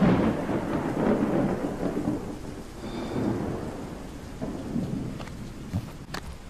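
Thunder rumbling and slowly fading over steady rain, with a few sharp ticks near the end.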